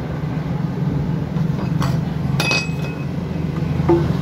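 Metal clinks from the hand tools, a ringing one about two and a half seconds in. Near the end comes a single knock of a rubber mallet on a steel pipe used as a drift, tapping the rubber bearing seal into the motorcycle's rear wheel hub.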